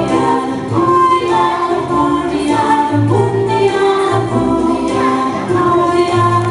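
Music: a group of voices singing a song in held notes over an accompaniment with a low bass line.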